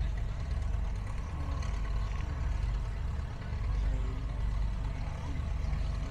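Vintage tractor engine running steadily, a continuous low rumble.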